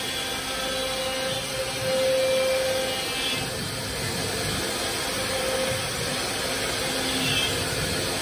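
M1325AG CNC router's spindle running with a steady whine over a constant rush of cutting noise as the bit moves through the board. The whine swells and fades as the cut goes on.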